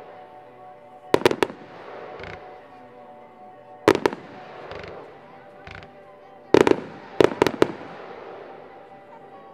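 Fireworks shells bursting with sharp bangs in groups: two or three just after a second in, one loud single bang near four seconds, and a quick cluster of four or five between about six and a half and eight seconds in. Music plays steadily underneath.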